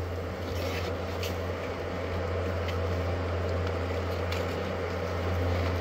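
A steady low hum, with a few faint crackles as the papery comb of a hornet nest is handled and pulled apart by gloved hands.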